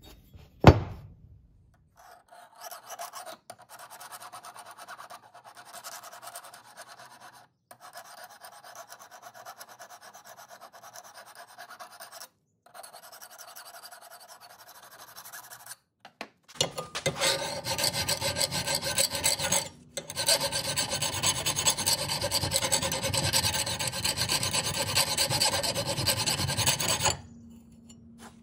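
A flat hand file rasping across the steel edge of a tomahawk head forged from a wrench, in steady back-and-forth strokes, louder in the second half. A single sharp clink comes about a second in.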